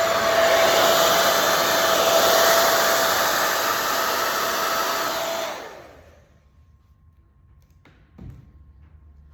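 Hand-held blow dryer running with a steady rushing whoosh and a constant hum, blowing wet paint across a painting. A little over halfway through it shuts off and winds down, leaving quiet with a faint knock or two.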